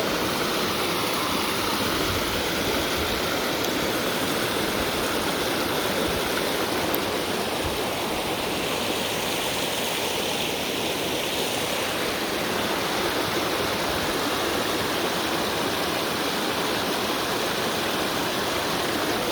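Waterfall's rushing water: a steady, unbroken rush.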